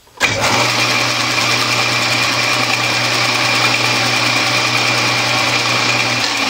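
Metal lathe switched on: the motor and spindle start abruptly and run steadily with a low hum and a high whine, spinning a chuck that holds a brake disc. The low motor hum drops out near the end.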